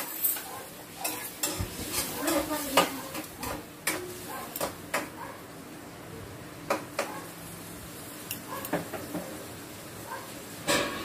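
Stainless steel fork and spoon clinking and scraping against glass bowls while saucy pork stew is scooped onto rice. A run of sharp clicks, thickest in the first five seconds, with a few more later and a short cluster near the end.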